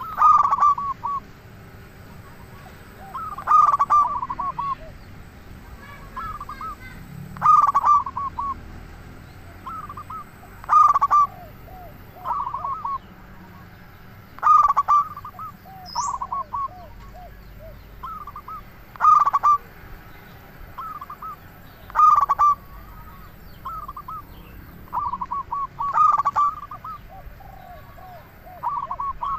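Zebra dove (perkutut) cooing its song. A short phrase of quick coos repeats about every three to four seconds.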